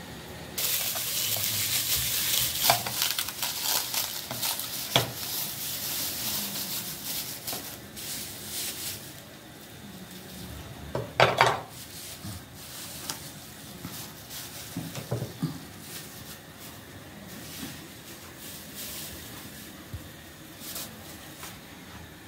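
Hand trigger spray bottle misting, many quick hissing squirts one after another for the first several seconds. Then quieter handling noise with a loud clink of a plate a little past the middle.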